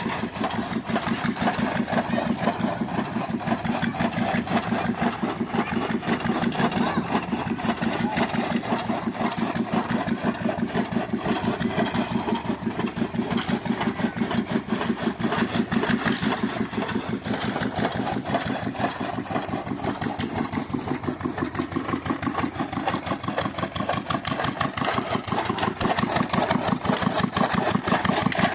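Engine of an improvised chaff cutter machine running steadily with a fast, even beat, growing slightly louder near the end.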